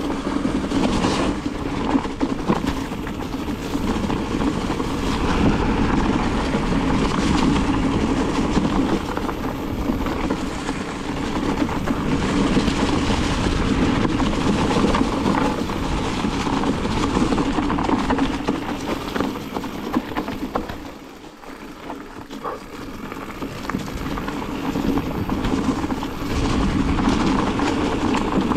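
Mountain bike rolling down a dry forest singletrack: knobby tyres running over dirt and dead leaves, with a constant rough rumble and many small knocks and rattles from the bike. It goes quieter for about a second some three quarters of the way through, then picks up again.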